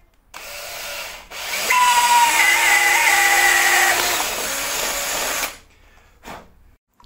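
Cordless drill boring holes in a plate: a short run, then a longer one from about a second and a half in, with a steady motor whine that climbs as it spins up. It stops about five and a half seconds in.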